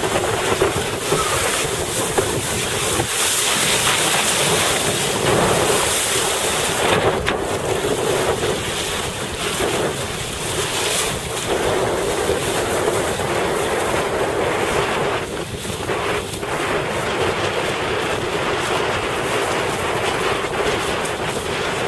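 Steady wind noise on a helmet-mounted camera's microphone while windsurfing, mixed with water rushing and splashing past the board.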